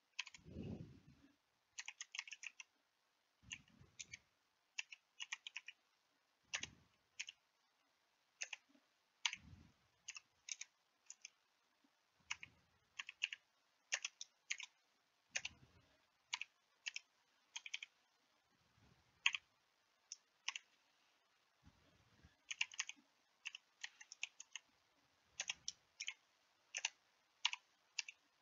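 Typing on a computer keyboard: faint, irregular keystrokes in short runs with pauses between them.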